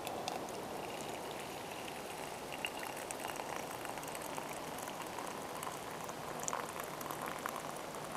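A thin stream of hot drink poured from a metal camping pot into a metal mug, spattering and trickling steadily as the mug fills.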